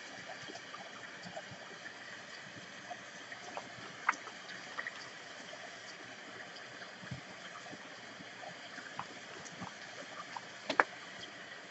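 Tarot cards being shuffled between the hands and laid on a table: faint slides and soft taps, with one sharper snap near the end, over a steady background hiss.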